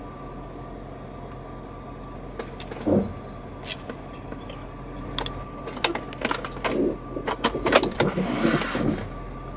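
Jeep Cherokee heard from inside: a steady low engine hum, a thump about three seconds in, then a run of irregular clicks and knocks and a short hiss near the end.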